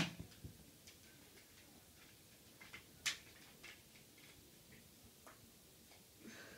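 Nerf foam-dart blaster: one sharp snap right at the start, then a few faint clicks and a sharper click about three seconds in as the blaster is handled.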